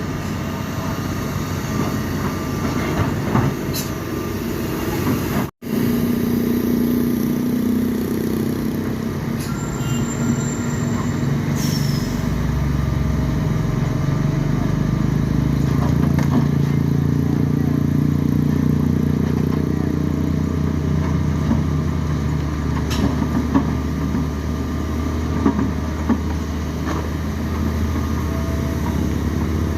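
Heavy diesel engine running steadily under load, with a brief cut in the sound about five and a half seconds in.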